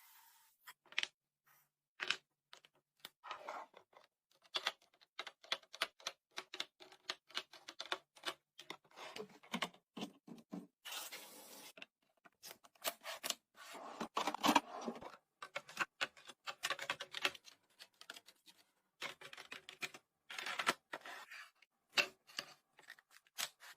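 Groceries and containers being handled and set down during a fridge restock: many short clicks and knocks, with stretches of packaging rustle now and then.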